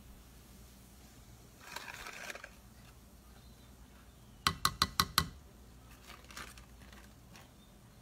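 A brief rustle, then a spoon tapped five times in quick succession against the rim of a stainless steel cooking pot, each tap ringing faintly, to knock tamarind powder off into the soup.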